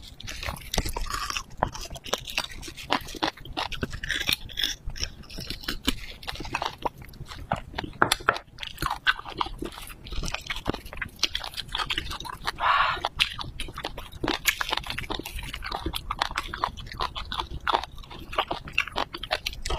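Wet chewing and sucking of braised beef bone marrow, eaten from the bone, with many small sticky mouth clicks that go on without pause.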